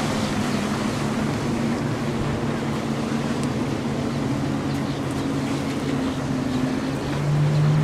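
Steady drone of motorboat engines out on the river, a little louder near the end, with wind rushing over the microphone.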